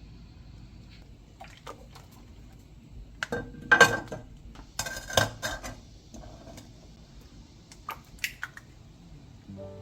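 Dishes and cutlery clattering and clinking: a run of knocks and clinks, loudest about four seconds in and again about five seconds in, the loudest ringing briefly, with a few single clicks near the end.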